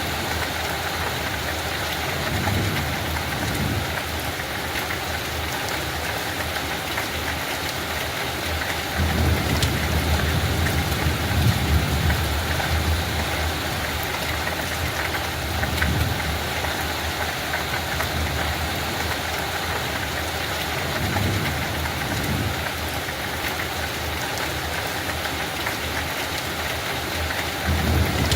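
Steady light rain with fine patter of drops, and a low rumble that swells and fades several times.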